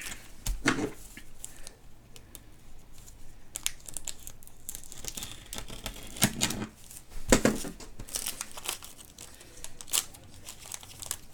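A trading-card pack wrapper being torn open and crinkled by hand: a series of short rips and rustles, the loudest a little past halfway.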